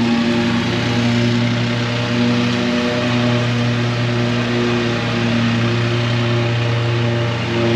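Background music with held notes over the steady running of a lawn mower engine.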